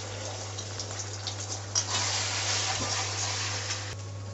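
Beaten egg sizzling in hot oil in a metal kadai, with a few short clicks and scrapes of a metal spatula as it is stirred and broken up. A steady low hum runs underneath.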